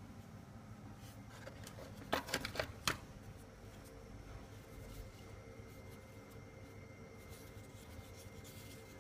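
A quick run of sharp plastic clicks and knocks a little over two seconds in, as the removed plastic hydraulic block of the boiler is handled and lifted. Low room noise with a faint steady high tone surrounds it.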